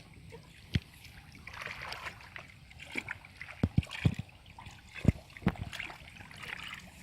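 Water splashing and sloshing, broken by about seven dull thumps, most of them bunched in the middle of the stretch.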